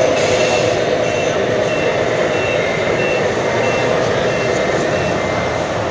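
Reversing beeper from a radio-controlled scale model truck's sound module: a short, high beep repeating evenly, about one and a half times a second. It sits over the loud, steady hubbub of a crowded exhibition hall.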